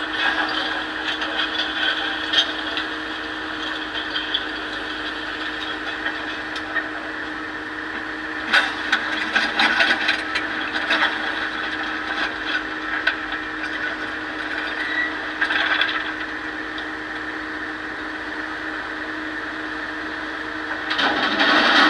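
Excavator engine running with a steady drone while stones clatter and scrape as they are loaded into a dump truck, the clattering coming in bouts about eight seconds in, again around fifteen seconds and loudest near the end.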